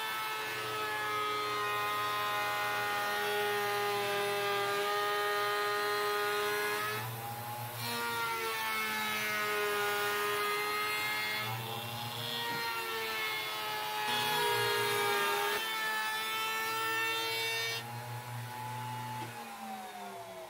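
Table-mounted wood router running with a steady whine while its bit trims the edge of a 3/4-inch MDF panel, cleaning up an opening first cut with a jigsaw. Its pitch dips briefly several times as the bit takes more load. Near the end the whine falls away as the router spins down.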